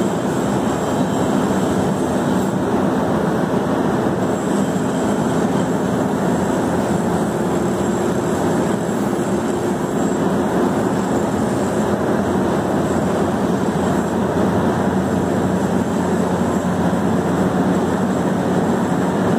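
Large Kaleswaram lift-irrigation pump set running steadily on a dry-run test, an even machine noise with a steady low hum that does not change.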